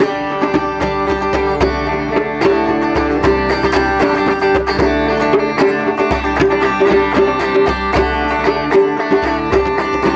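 Instrumental break of a live band: plucked string instruments playing many quick notes over held chords, with no singing.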